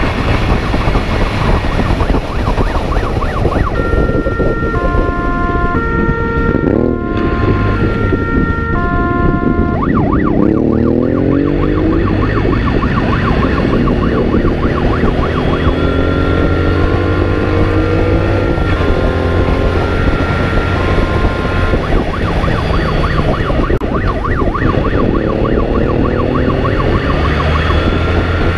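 Police motorcycle riding hard, its engine revving up through the gears again and again. Its siren sounds in spells of stepped, alternating tones, the first a few seconds in, another in the middle and another near the end.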